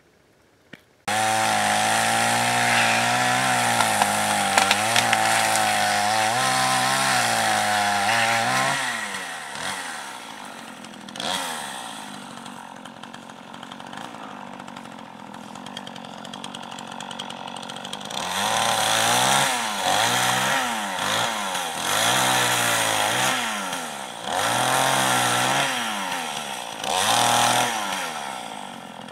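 Chainsaw starting suddenly about a second in and running fast and steady, dropping to a lower, quieter speed partway through, then revved up and down over and over near the end.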